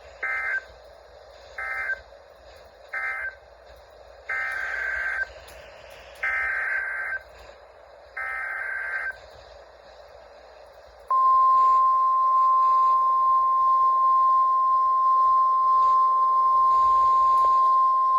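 NOAA weather radio sending its digital SAME data bursts: three short screeching bursts about a second and a half apart, then three longer ones about two seconds apart, the end-of-message code for the warning just read and the header for the next alert. About eleven seconds in, the steady single-pitch 1050 Hz warning alert tone starts and holds.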